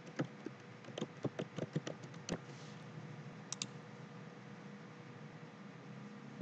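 Computer keyboard keystrokes: a quick run of about ten key taps, ending in one sharper click about two seconds in, then two more clicks a second later. Faint steady room hum after that.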